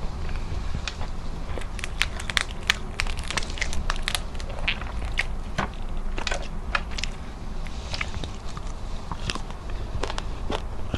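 Crispy fried tilapia crackling and crunching close to the microphone as it is torn apart by hand and chewed: irregular sharp crunches, thickest in the first half.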